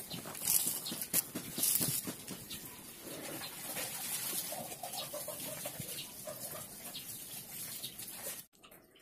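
Used engine oil trickling in a thin stream from a Yamaha Mio Soul scooter's crankcase drain hole into a plastic tub, with a bird calling in the background from about three seconds in.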